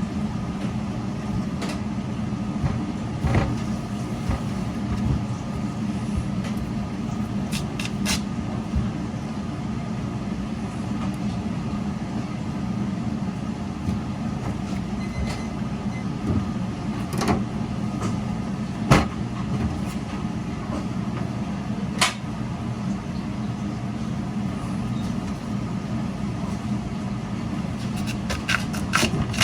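Industrial radish-slicing machine running with a steady motor hum, broken by a few sharp clicks.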